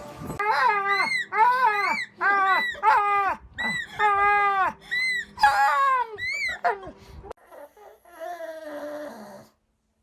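A dog whining and yowling in a quick series of about ten short cries, each rising and falling in pitch, with a longer one in the middle. A few fainter, falling whines follow, then the sound cuts off abruptly.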